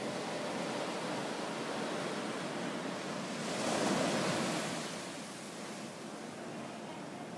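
Ocean surf washing steadily, with one wave swelling louder about halfway through and then falling away.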